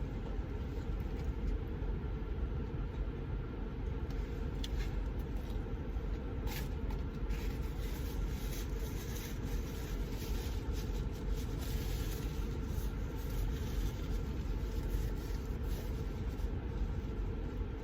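Steady low rumble inside a parked car, with a faint click about six and a half seconds in.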